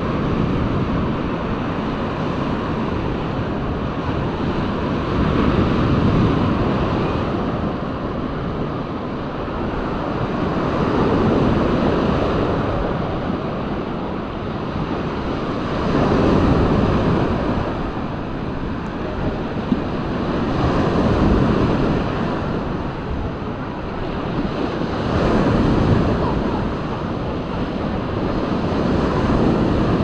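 Sea waves breaking on a sandy beach, the wash swelling and falling about every five seconds, with wind on the microphone.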